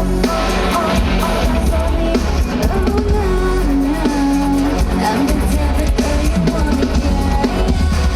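Pop song played loud over a stage sound system, with drums, bass and a singing voice carrying the melody.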